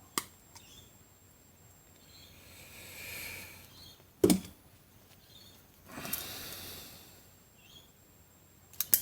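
Small hand-tool work on electrical wire: a sharp click near the start, a single knock about four seconds in, and two short spells of soft rasping, then a few quick clicks at the end, as worn wire ends are trimmed and stripped with cutters and strippers.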